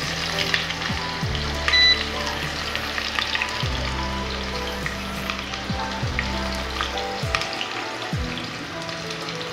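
Liquid sizzling and bubbling in an open pressure cooker on a gas burner, with a steady crackle. Background music with deep bass notes that slide down plays along with it.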